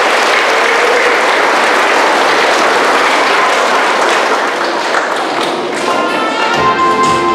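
Audience applauding, dying away about six seconds in as music starts near the end.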